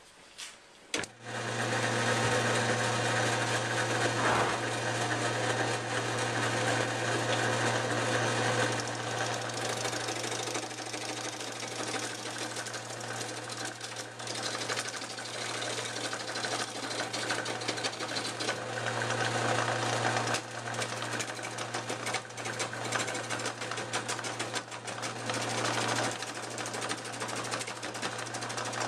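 Wood lathe switched on about a second in and running at its slowest speed, 875 RPM, its motor giving a steady hum. A hand-held turning tool on the rest cuts into the spinning bark-covered log with a continuous rapid scraping clatter.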